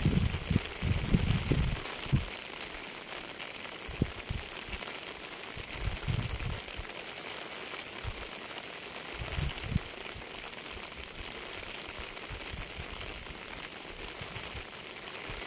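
Steady rain falling, an even hiss, with short low thumps or rumbles now and then, the strongest cluster near the start.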